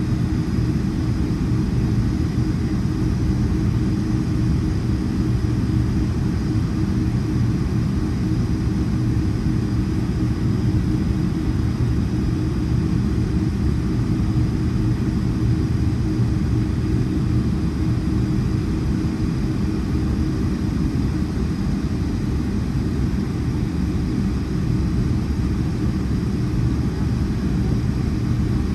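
Boeing 757-300 with its Rolls-Royce RB211 engines running: a steady rumble with a low hum that does not change.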